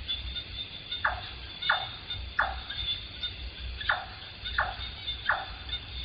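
A night bird calling a short falling note, repeated in runs of three about two-thirds of a second apart, over a steady high-pitched insect chorus and a low rumble.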